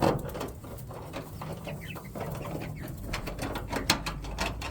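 Chickens calling softly and clucking, with scattered clicks and knocks of handling and one sharp knock about four seconds in.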